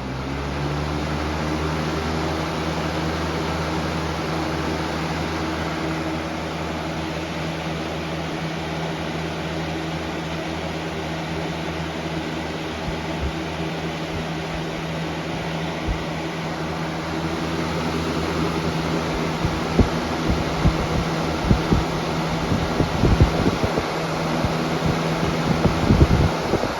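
Lasko 20-inch Power Plus box fan running on high speed: a steady whir of moving air over a motor hum that steps up in pitch in the first second as it spins up. In the second half, irregular low thumps of its airflow buffet the microphone.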